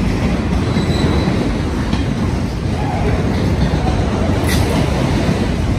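Freight train of autorack cars rolling past close by: a steady rumble of steel wheels on the rails, with one sharp click about four and a half seconds in.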